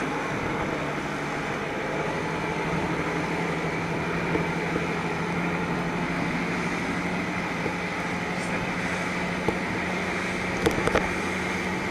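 Speedboat's engine running steadily under way: a steady low hum beneath the rush of wind and water.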